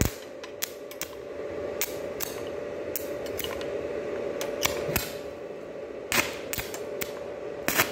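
Electric arc welding on steel bars: a brief strike of the arc right at the start, then a steady hum with scattered sharp clicks and crackles, busiest in the first half.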